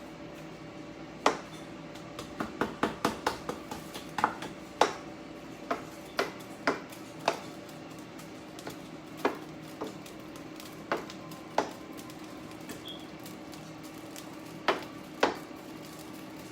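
Kitchen utensils clinking and knocking against pots and dishes: irregular sharp knocks, with a quick run of them a couple of seconds in, over a steady low hum.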